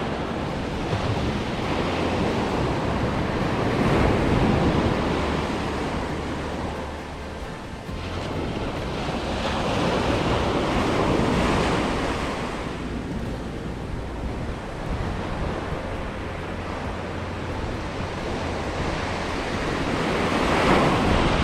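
Ocean surf breaking on a sandy beach, the wash swelling and fading three times as waves come in, over a low rumble of wind on the microphone.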